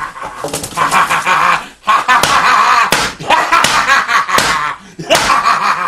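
Repeated hard slaps as a white bird figure is beaten down onto a tabletop with an overhead swinging arm, about one blow a second.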